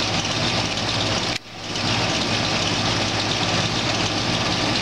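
A 2006 Rheem Classic RQNJ 3.5-ton packaged heat pump running in heating mode: a steady rush of the outdoor fan over the hum of its Copeland scroll compressor. The sound drops out suddenly about a second and a half in and comes back within half a second.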